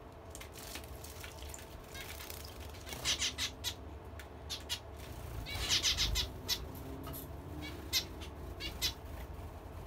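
Zebra finch bathing in a shallow bird bath, fluttering its wings in the water in short bouts of rapid splashing, about three, five and a half and eight seconds in.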